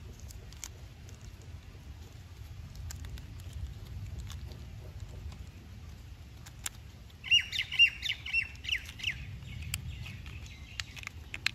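Small clicks of hard plastic toy parts being handled and fitted together, over a low steady rumble. About seven seconds in, a bird calls in a quick string of short notes for about two seconds.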